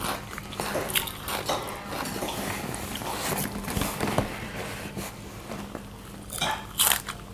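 Close-up eating sounds: biting and chewing raw greens, with scattered small crunches and mouth clicks, and a couple of louder bites near the end.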